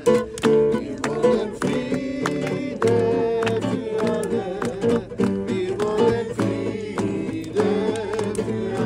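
Voices singing a worship song, accompanied by a strummed acoustic guitar.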